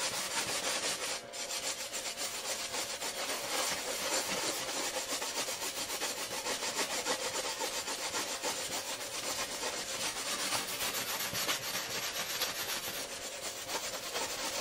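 Wet 3M drywall sanding block rubbed rapidly back and forth along the cut edge of a glass pane: a continuous scraping made of many quick short strokes, rounding over the sharp edge. It briefly drops off about a second in.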